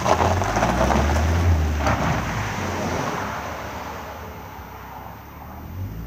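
Small hatchback car's engine revving as it pulls away, its tyres crunching over gravel, loudest in the first two seconds and then fading as the car drives off.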